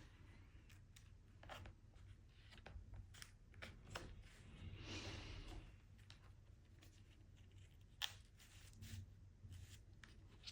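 Faint handling of a heavy handmade-paper concertina book: scattered soft clicks and taps, with a brief paper rustle about five seconds in, over a low room hum.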